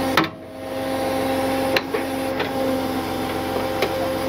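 Tow truck winch running, a steady mechanical whine, with a few sharp clicks.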